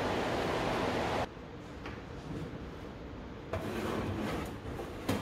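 A steady rushing noise cuts off about a second in. The door of an electric range oven is then opened, and the oven's wire rack slides out, ending in a sharp metal click.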